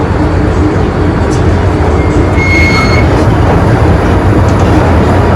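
MTR M-train (electric metro train) running, heard from inside the car: a loud, steady rumble of the train in motion. About halfway through a brief high whistling tone sounds over it.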